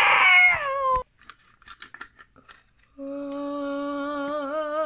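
A voice cries out in a long, high wail that slides down in pitch and breaks off about a second in. After a pause with a few light clicks, a steady hum starts on one note and wavers near the end.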